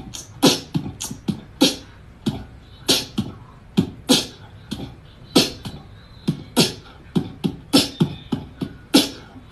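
A rhythmic string of short percussive thumps and clicks, about two or three a second, each with a low thud and a crisp high hiss.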